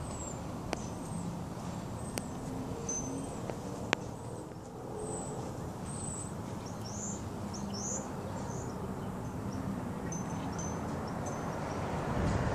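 Small birds chirping now and then in short, high notes over a low, steady background rumble, with three sharp clicks in the first four seconds.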